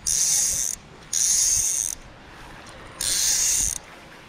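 Click-and-pawl drag of a budget Martin 5/6 fly reel buzzing as fly line is stripped off by hand in three pulls of under a second each: at the start, about a second in, and about three seconds in.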